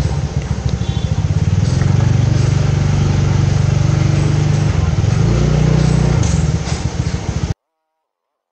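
Motorcycle engine running at a crawl with little throttle, its note shifting for a moment a little past halfway. The sound then cuts off abruptly about seven and a half seconds in.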